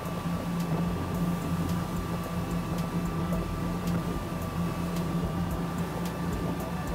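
Outboard motor of a small boat running steadily at cruising speed, an even drone, with water rushing past the hull.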